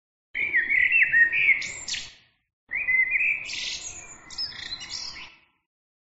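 Eurasian blackbird singing two song phrases. Each phrase opens with a few gliding whistled notes and ends in a higher, scratchy twitter.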